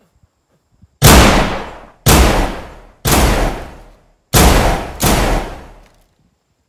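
Five loud gunshots, about a second apart, with a slightly longer gap before the fourth. Each shot has a long echoing tail that fades over about a second.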